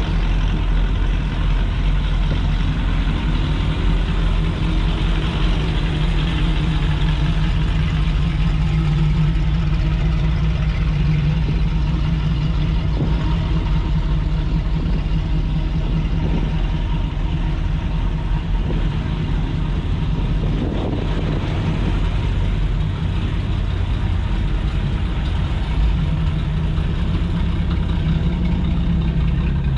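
Classic car engines running as cars roll slowly past, a steady low engine sound throughout. One engine's pitch rises and falls a few seconds in, and another rises briefly about two-thirds of the way through.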